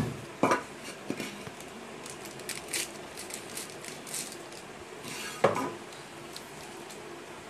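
Metal kitchenware being handled: an aluminium mixing bowl and utensils clink and knock twice sharply, about half a second in and about five seconds later, with light crinkling and ticking of a spice packet being handled in between.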